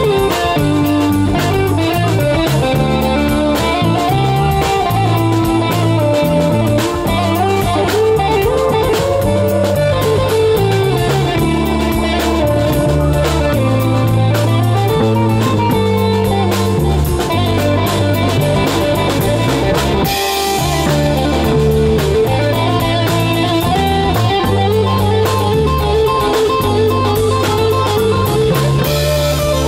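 Live band playing an instrumental passage: electric guitar lead lines over a steady bass line and drum kit.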